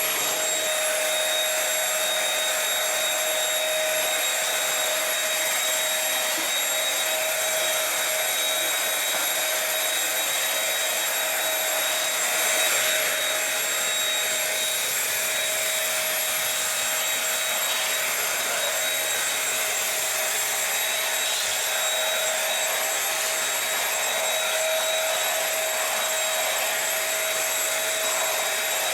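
Dirt Devil SimpliStik stick vacuum running steadily, a constant motor whine over the rush of suction air.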